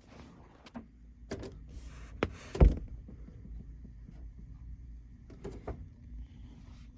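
A run of mechanical clicks and clunks, the loudest a sharp knock about two and a half seconds in, and a few more clicks near the end.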